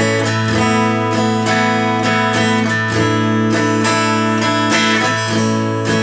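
Epiphone semi-hollow electric guitar strumming an open A major chord, changing to Asus4 and back, with about two strums a second. The open A bass string rings underneath throughout.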